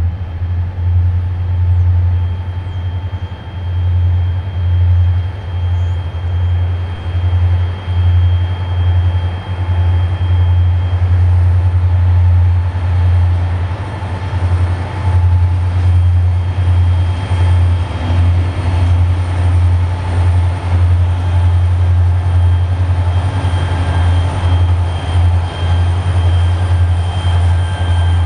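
Norfolk Southern freight train with several diesel locomotives passing, then tank cars rolling by: a loud, steady low rumble that pulses, with a haze of rail noise and thin, steady high tones over it.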